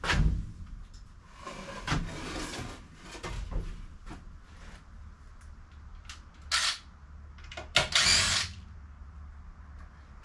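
A power drill run in three bursts on a screw in a wooden shelf frame: about a second and a half, then a short one, then about a second. Sharp wooden knocks fall between the bursts. The screw is stuck and will not back out.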